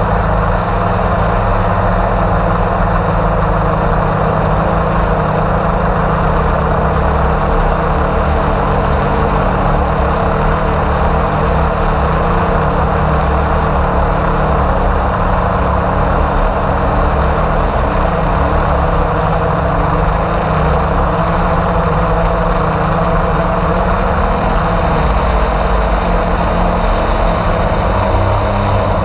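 Multirotor drone's motors and propellers running steadily, picked up by the camera on board, with a low, unsteady rumble underneath.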